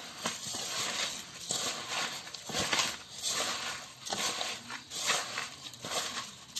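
Mashed Palayamkodan bananas with sugar, salt and cumin being mixed in a bowl: soft, wet squishing strokes, about one or two a second.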